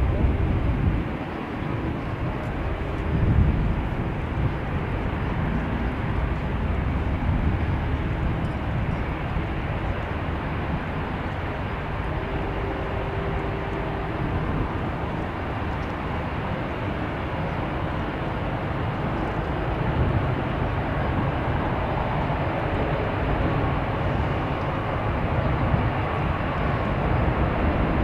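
Steady jet noise from an Airbus A350-900's Rolls-Royce Trent XWB turbofans as the airliner descends on final approach and touches down, heard as a continuous low roar that grows a little stronger in the later part.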